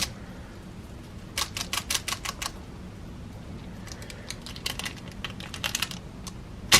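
Quick runs of light, sharp taps on a mould filled with wet silicone gel, tapped to bring trapped air bubbles to the surface, with one louder tap near the end.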